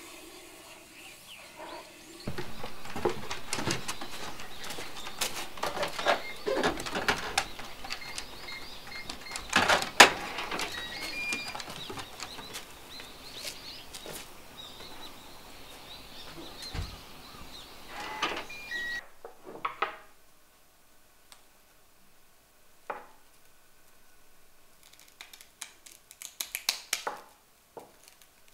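Knocks and clatter from things being handled, with a few short bird chirps. Near the end comes a quick run of sharp snips from scissors cutting a dried loofah sponge.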